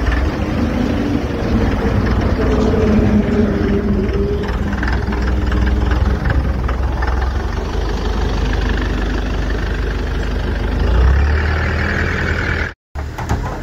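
Diesel engine of an Escorts F-17 pick-and-carry crane running, a steady low rumble whose note shifts during the first few seconds. The sound cuts out for a moment near the end.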